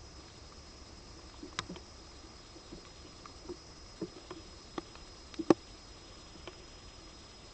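A wild bird moving about on the ground, making scattered light taps and rustles: about a dozen irregular clicks, the loudest about five and a half seconds in.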